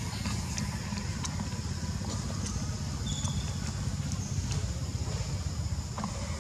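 Steady low outdoor rumble, with scattered faint high ticks and a brief high chirp about three seconds in.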